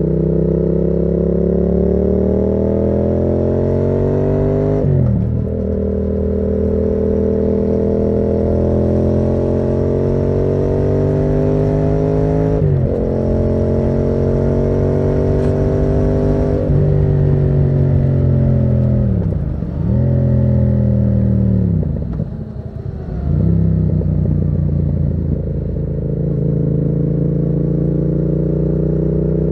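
Yamaha MT-07's parallel-twin engine through a Termignoni exhaust, accelerating hard through the gears with the pitch climbing and dropping sharply at upshifts about 5 and 13 seconds in. After about 17 seconds it slows, the pitch falling with two deep dips as it comes down the gears, then holds steady at a cruise near the end.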